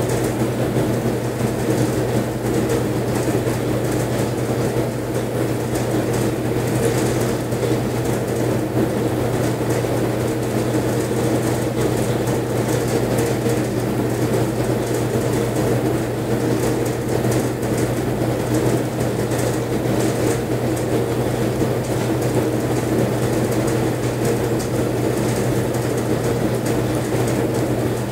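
A steady low hum that does not change in level or pitch.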